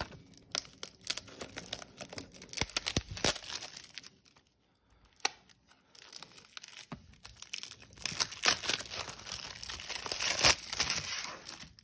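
Plastic shrink wrap being torn and peeled off a Blu-ray case: crinkling, crackling tearing in spurts, with a lull near the middle broken by one sharp click, then a busier stretch of crackling near the end.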